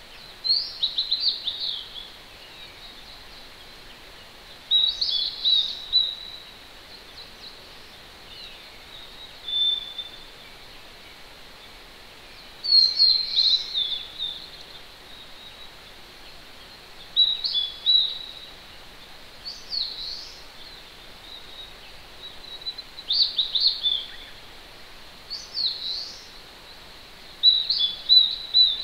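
A songbird sings about nine short, high phrases of quick notes a few seconds apart. Under it runs a steady hiss from a distant mountain stream.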